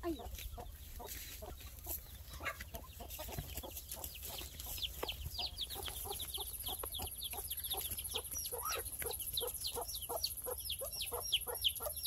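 A hen clucking in a steady run of short, evenly spaced clucks, joined about halfway through by her chicks peeping in quick, high, falling chirps.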